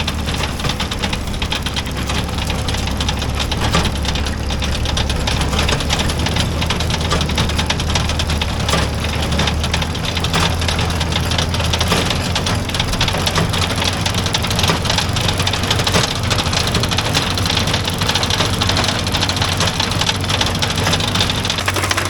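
Antique tractor engine running steadily, its low note shifting slightly about halfway through, with a manure spreader's mechanism clattering busily over it.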